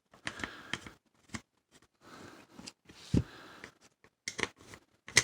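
Screwdriver and hands working a stubborn long screw out of a jigsaw housing: irregular clicks and short scrapes, with a sharp knock about three seconds in and another near the end.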